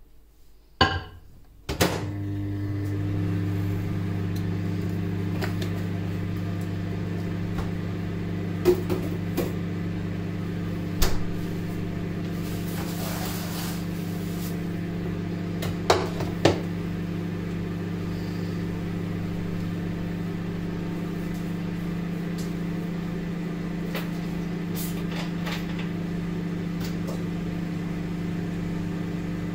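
Microwave oven being shut with a couple of clunks and started, then running with a steady low hum. A few sharp clicks now and then; the egg whites inside are going back in because they were not yet cooked.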